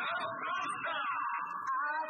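Yosakoi dance music played over a loudspeaker: a high melody line sliding up and down in pitch, with the low accompaniment dropping out near the end.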